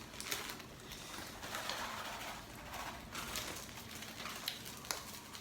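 Scattered light clicks and taps over soft rustling noise.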